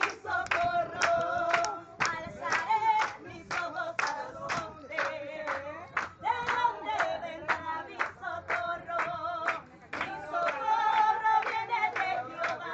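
People singing together while clapping their hands to a steady beat, about two claps a second.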